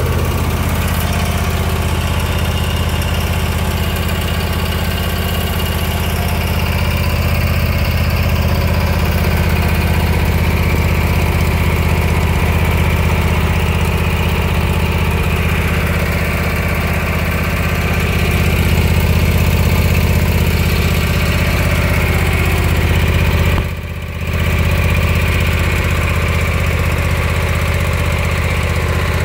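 The engine of a 2011 Toro Grand Stand stand-on commercial mower running steadily at idle, a constant low hum, with a brief dip in loudness about 24 seconds in.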